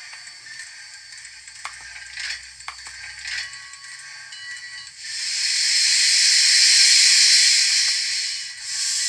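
Large-scale model steam locomotive's sound effects: faint clicks and rattles, then a loud steam hiss that swells up about five seconds in, lasts some three seconds and fades, with a second hiss starting near the end.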